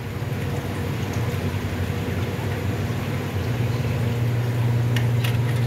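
Steady low electrical hum, getting a little louder about three and a half seconds in, with a few light clicks near the end.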